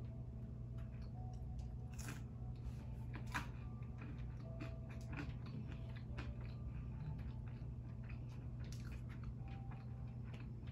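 A person chewing curly fries close to the microphone, with crunches and wet mouth clicks over a steady low hum. A louder bite into a shrimp cheeseburger comes near the end.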